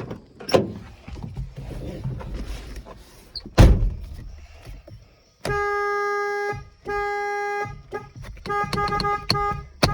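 Ford truck's horn honking with a high tone: two long blasts of about a second each, then a quick string of short toots. A heavy thud comes a couple of seconds before the first honk.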